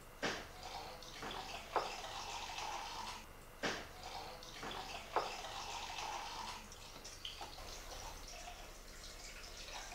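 Bathroom tap running steadily into a ceramic sink as a knife and then hands are rinsed under the stream, with water splashing. A few sharp knocks stand out over the running water in the first five seconds.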